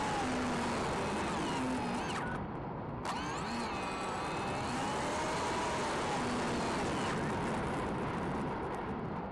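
Small brushless motor (T-Motor F60 2550kV) and propeller of an FPV flying wing, heard through its onboard camera with rushing wind, the motor's pitch rising and falling with throttle. About two seconds in the motor drops off, and it comes back sharply about a second later.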